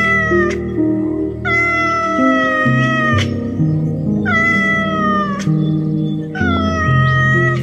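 Background music of low sustained notes with a cat meowing over it: four long meows of nearly the same shape, each falling slightly in pitch at its end, spaced a second or so apart.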